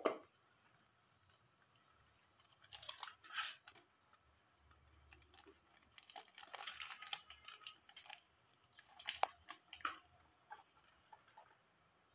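A sharp knock right at the start, then several bursts of paper rustling and crinkling as a folded paper invoice is unfolded and handled.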